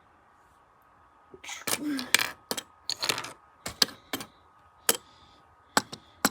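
A string of sharp clicks and short clattering rattles of small hard objects, about a dozen over five seconds, beginning after a second or so of near quiet.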